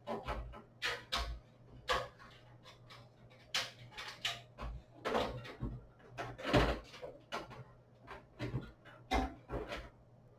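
Irregular knocks, clicks and rustles of computer hardware being handled and fitted into a PC case, about a dozen short sharp sounds spread unevenly over a faint steady hum.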